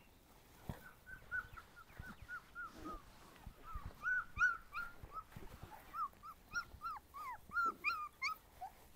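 Young puppies whimpering: a run of short, high-pitched cries, several a second, many dropping in pitch, with a few low thumps in between.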